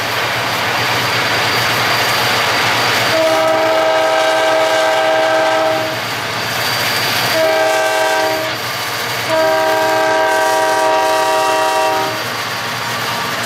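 Diesel freight locomotive's air horn sounding three blasts of several notes at once, long, short, then long, with the last ending about a second before the end. The pattern fits a locomotive whistling for a grade crossing. Steady road and wind noise from the moving chase car lies under it.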